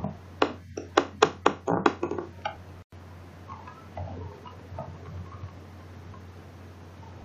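A quick, irregular run of sharp taps, about nine in the first two and a half seconds, then a few faint soft sounds over a steady low hum.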